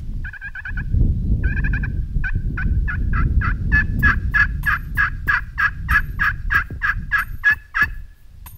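Hand-worked turkey call sounding a long, even run of hen-style yelps, about three to four notes a second, after two short opening bursts; the run stops shortly before the end. Wind rumbles on the microphone underneath.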